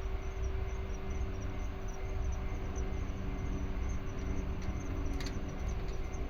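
Insects chirping in a steady, evenly pulsing high trill over a low, steady rumble with a faint constant hum.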